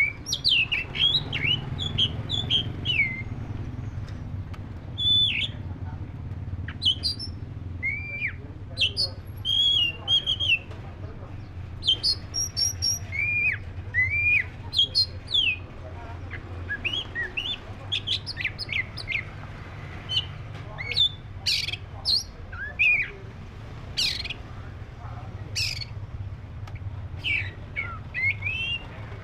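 Oriental magpie-robin of the black-breasted kacer form singing: a varied run of short whistled notes, many sliding downward, densest in the first half, with a few loud, sharp high notes later on. A steady low hum runs underneath.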